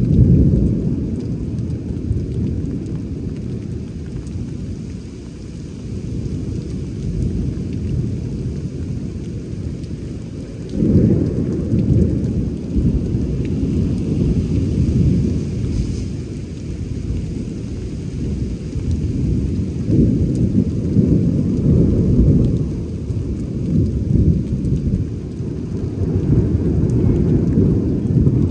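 Thunder rumbling in long, rolling peals during a thunderstorm, with fresh surges right at the start, about eleven seconds in and again about twenty seconds in, over a steady hiss of rain.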